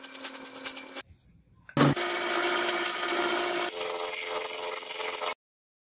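Machining steel: a large twist drill boring into the steel, a steady hum under the cutting noise, stops about a second in. After a short pause and a sharp bang, a milling cutter cuts the steel block with a steady machine sound that shifts pitch partway through and cuts off abruptly near the end.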